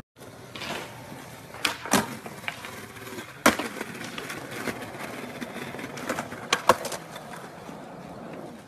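Skateboard wheels rolling on smooth concrete, broken by sharp clacks of the board popping and landing several times. The loudest crack comes about three and a half seconds in, and two quick ones come close together later on.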